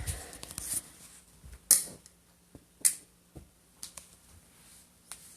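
A scattering of sharp clicks and knocks indoors, two louder ones close together near the middle, over a faint steady hum.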